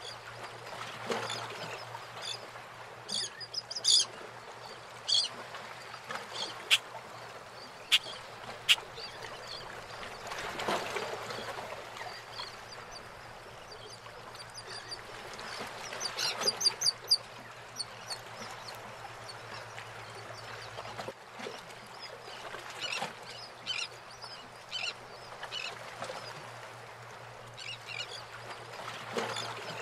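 Harbour water sloshing around moored wooden fishing boats, swelling and easing every few seconds, with birds calling in short high chirps and a few sharp knocks from the boats.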